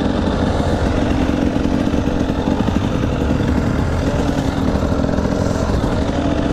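Motorbike engine running at a steady speed while riding along a trail.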